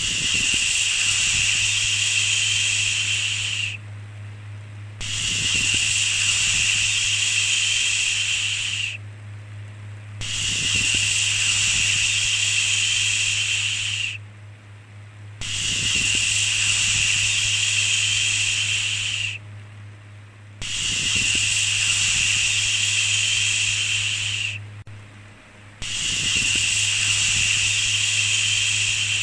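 A 'shhh' shushing sound repeated about every five seconds: each shush lasts nearly four seconds, then there is a short pause of about a second. A faint steady low hum runs underneath.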